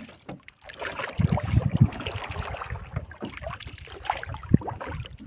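Water lapping against the hull of a wooden boat, a low, uneven rumble that thickens about a second in, with a few faint knocks.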